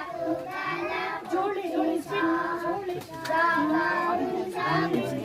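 A group of children singing a song together, with held, sliding notes.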